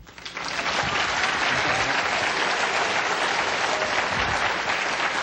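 Audience applauding: a full round of clapping that swells up within the first half second and then holds steady.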